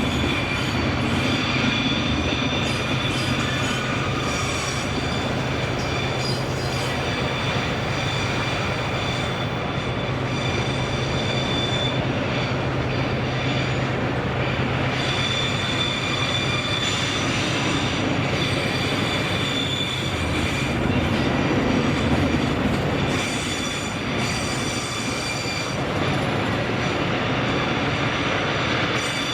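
Freight train rolling past, its wheels squealing in high tones that come and go over the steady rumble of the cars, with a low steady hum that fades about 23 seconds in.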